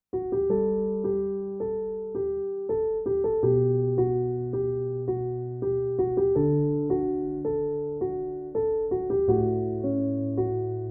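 Background music: an electric piano playing a steady pattern of repeated notes over held bass notes.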